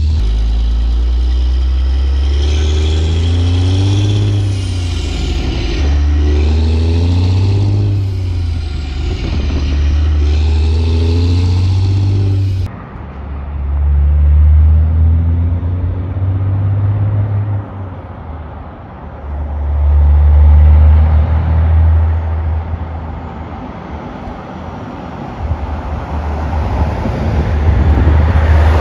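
Cat C15 (6NZ) diesel in a Western Star 4900 truck pulling hard through the gears. The pitch climbs and drops back several times, first heard close to the exhaust stack and then from the roadside as the truck approaches, growing louder near the end.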